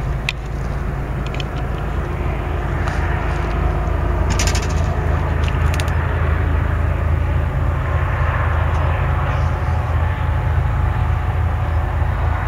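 Low, steady rumble of BNSF SD70MAC diesel locomotive engines, growing slightly louder. A few light clicks come in the first six seconds.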